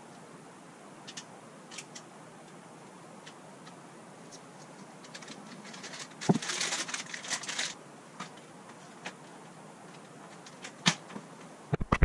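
Metallised anti-static bag crinkling for about a second and a half as a circuit board is slipped into it, starting with a short knock. Scattered faint handling clicks before and after.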